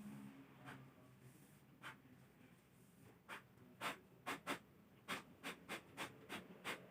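A series of light, sharp clicks or taps: one or two faint ones early, then about a dozen at roughly three a second in the second half.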